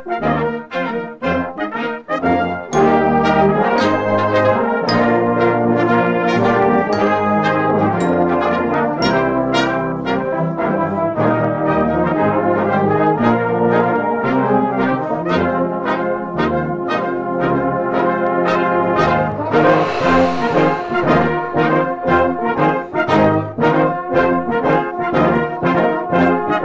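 Brass band playing a lively passage: many brass parts together in short, rhythmic repeated notes over sustained low notes, with a brief hissing wash, like a cymbal, about twenty seconds in.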